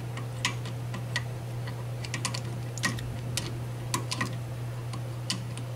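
Light, irregular clicks and ticks of a caliper windback tool turning a rear brake caliper piston, as it is spun back into the caliper by hand, over a steady low hum.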